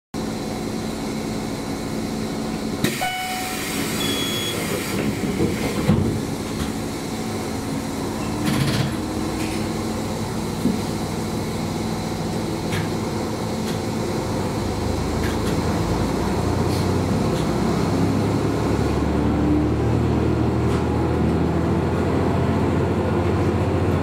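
KiHa 220 diesel railcar's engine idling at a standstill, with a brief hiss and a few clunks in the first seconds. From about fifteen seconds in the engine revs up and grows louder as the railcar pulls away.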